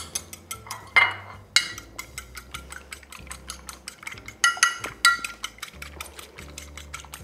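An egg being beaten with a utensil in a bowl: rapid, even clinks against the bowl, about five a second, with a few louder ringing strikes.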